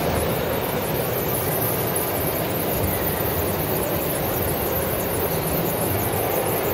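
Sand pouring steadily from a model silo plant's feeder into the metal tipper body of an RC dump truck, an even hissing trickle over the continuous running of the plant's machinery.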